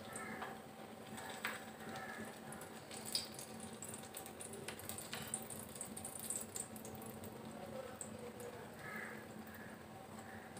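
Faint sizzling of a sweet flour-and-coconut tikki shallow-frying in a little oil on an iron tawa over low heat, with a few soft clicks and taps scattered through.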